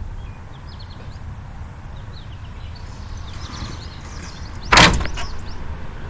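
Birds chirping over a steady low rumble of wind on the microphone, with one sudden loud thump about five seconds in, the loudest sound.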